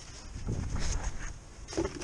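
Plastic battery tray in a car's engine bay being handled and pressed into place, with a short knock near the end.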